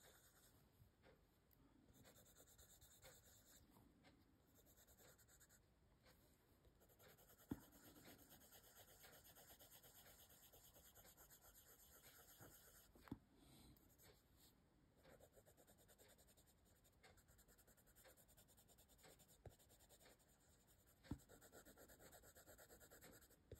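Faint scratching of a soft Prismacolor coloured pencil lead shading on paper in short back-and-forth strokes, with a few small clicks along the way.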